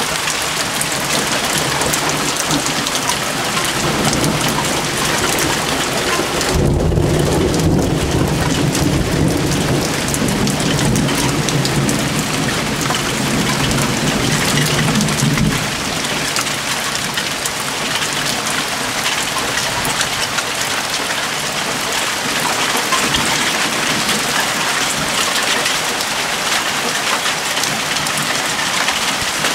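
Steady rain falling, with a long roll of thunder starting about a quarter of the way in, rumbling for around nine seconds and then cutting off.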